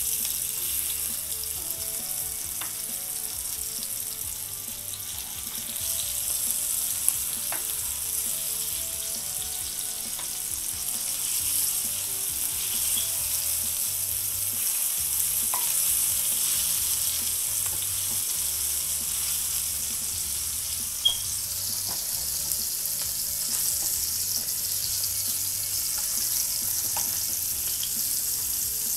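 Red snapper pieces shallow-frying in oil on a dosa tawa, a steady high sizzle, as a metal spatula turns them. A few sharp clicks and pops stand out, the loudest about 7 and 21 seconds in.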